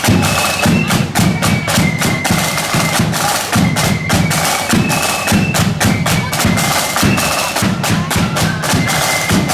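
Marching flute band playing: high flutes carry a stepping melody over rapid, busy snare drumming and bass drum beats.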